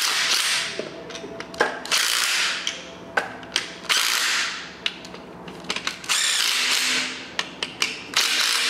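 Cordless DeWalt 20V impact driver hammering alternator mounting bolts tight, in four short bursts a couple of seconds apart, with small clicks of the socket and bolts between them.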